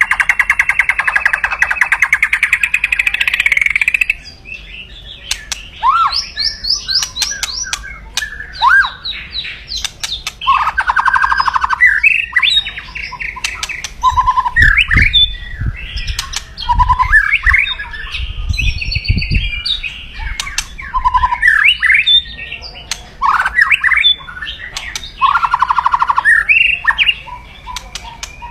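White-rumped shama (murai batu) giving its aggressive 'kretekan' rattle: fast, harsh rattling runs, the longest over the first four seconds, broken up by short whistled sweeps and chirps. This is the fighting-mood call of a male in full song, used to rouse rival birds.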